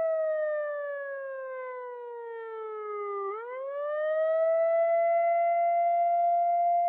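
A siren wailing: its steady tone sinks slowly in pitch for about three seconds, then swoops quickly back up and holds steady.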